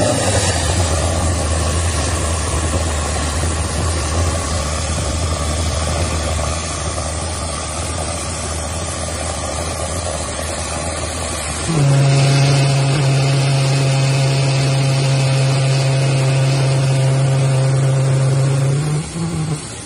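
Blue Heron 120 pulse jet engine running with a steady low drone. About two-thirds of the way through its pitch jumps up and it gets louder, holding a steady higher tone, and it cuts off near the end.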